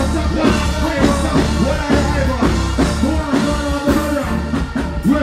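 Live reggae music: a male vocalist singing into a microphone over the band, with a heavy, steady bass line.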